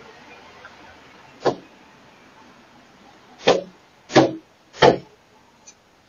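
Knocking on a door close to the doorbell camera: one heavy knock, then about two seconds later three more in a row, roughly two-thirds of a second apart, with a faint click after them.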